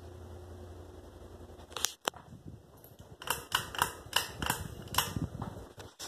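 Steady low hum of a Home Depot Clarkston 44-inch ceiling fan running. From about two seconds in it is broken by a quick series of sharp clicks and knocks, louder than the fan.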